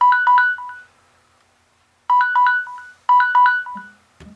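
A phone timer alarm going off: a short, bright electronic melody of a few notes, played three times with brief gaps, marking the end of a five-minute wait. A soft knock near the end.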